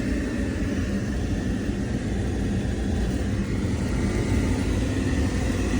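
Rinnai tankless water heater running, a steady low rumble of its burner and combustion fan.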